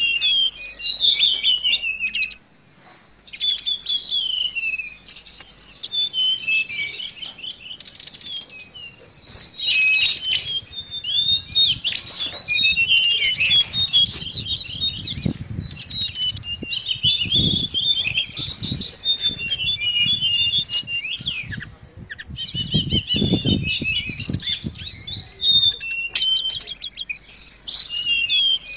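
A caged tledekan laut, a blue flycatcher, singing fast, varied runs of high chirping notes with brief pauses. Dull fluttering sounds from the bird's wings in the cage come in through the middle stretch.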